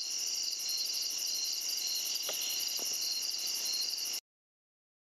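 Steady chorus of night insects, crickets and the like, a shimmering mix of high pulsing trills. It cuts off abruptly about four seconds in.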